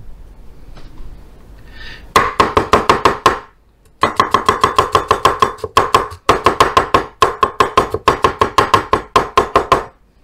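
Kitchen knife rapidly chopping garlic cloves on a wooden cutting board, about eight quick knocks a second. A short burst comes about two seconds in, then after a brief pause a long stretch of chopping broken by a few short stops.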